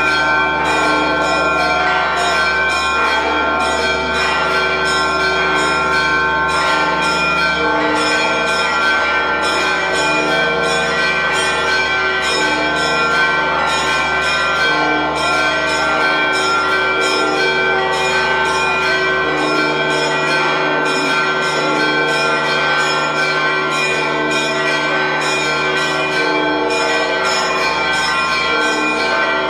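Church bells of the Church of the Holy Sepulchre pealing: several bells struck over and over at a steady quick rhythm, their tones overlapping into a continuous ringing, rung to mark the descent of the Holy Fire.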